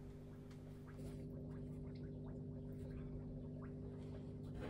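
Quiet room tone with a steady low hum, and a few faint clicks and taps as Mazda RX-8 13B rotary engine rotors are handled and turned over by hand.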